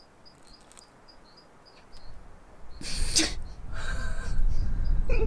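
A man's short, breathy exhale about three seconds in, just after a swig of foamy beer, over a low rumble of wind on the microphone that builds from about two seconds in. Faint insect chirps tick in the quiet first two seconds.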